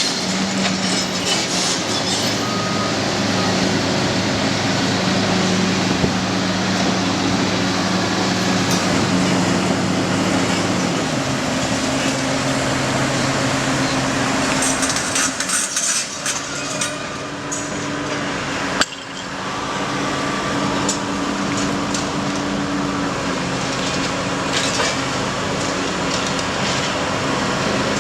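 Diesel engine of heavy demolition machinery running under load, its pitch shifting a few times, with clinks and knocks of breaking material and debris. A single sharp knock comes near the end of a brief lull about two-thirds of the way in.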